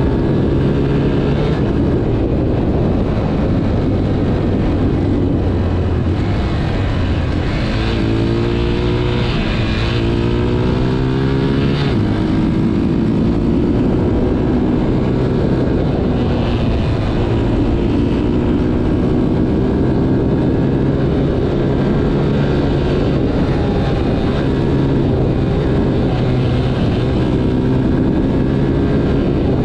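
Motorcycle engine running steadily while riding, with wind noise. About eight seconds in the engine note climbs as it accelerates, then settles back to a steady cruise.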